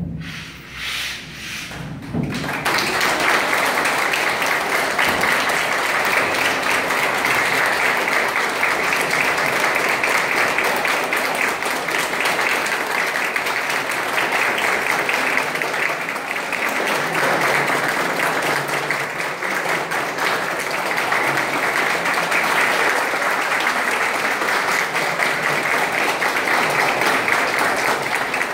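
An audience and cast applauding together, the clapping breaking out about two seconds in and then going on steadily.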